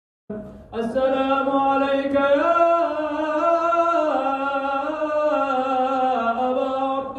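A single voice chanting an Arabic devotional salam (greeting of peace) unaccompanied. It starts after a brief silence and holds one long melodic line that slides slowly up and down in pitch.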